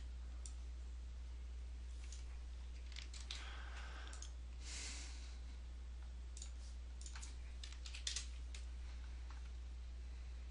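Scattered light clicks of a computer mouse and keyboard at a desk, bunched in small groups, over a steady low electrical hum.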